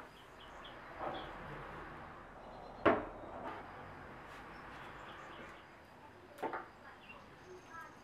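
Small objects being set down and handled on a bed tray: one sharp knock about three seconds in, a quick double click at about six and a half seconds, and a few soft ticks in between.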